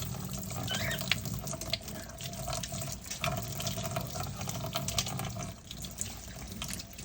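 Kitchen tap running into a sink while spoons are rinsed under the stream by hand, with a few light clicks.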